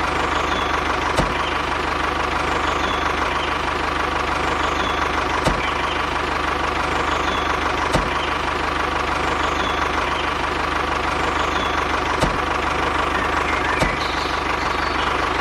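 Small engine running steadily at idle, with a few isolated sharp clicks.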